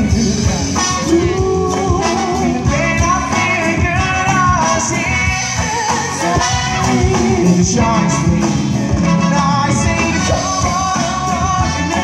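Live band playing a song, a man singing lead vocals over drum kit, guitars and hand percussion.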